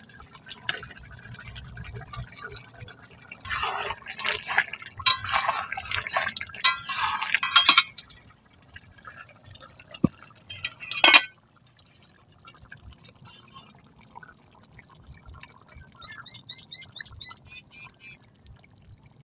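A metal spoon scrapes and clatters against a steel bowl and a metal karahi as ground garam masala paste is stirred into a simmering chicken curry, with wet, sloppy liquid sounds. One sharp metal clank comes about eleven seconds in, and a short run of high chirps near the end.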